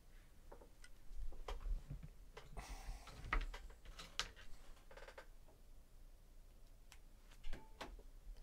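Scattered light clicks and taps at uneven intervals, with a brief rustle about two and a half seconds in and a few low thuds.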